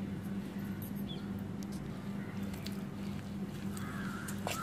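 Steel ladle stirring thick, coarse-ground rice-and-lentil adai batter with chopped onion and grated coconut in a stainless steel bowl: soft wet squishing with a few light clicks of the ladle against the bowl, over a steady low hum.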